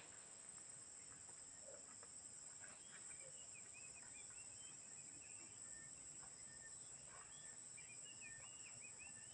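Faint outdoor ambience: a steady, high insect drone, with a bird chirping in quick runs of short notes, about three seconds in and again near the end.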